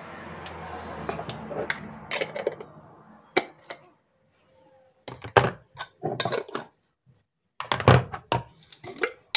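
Kitchen clatter of spice jars and lids being handled on a worktop: sharp clicks and clinks, single at first, then in short clusters through the second half.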